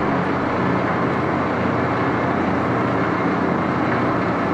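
Axelson gear-head lathe running steadily at 849 rpm, its headstock gears and spindle making a constant mechanical drone with no cutting under way.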